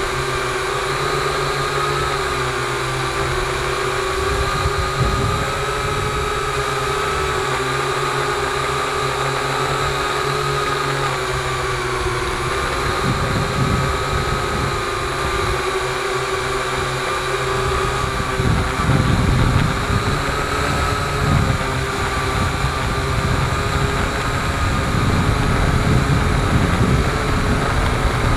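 Multirotor drone's electric motors and propellers whining steadily, heard from the drone's own onboard camera, the pitch wavering slightly as it manoeuvres. Under the whine is a gusty low rumble on the microphone that grows louder in the second half.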